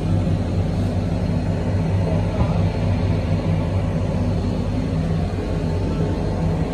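Steady low rumble and hum inside an aerial cable-car cabin as it runs along the line.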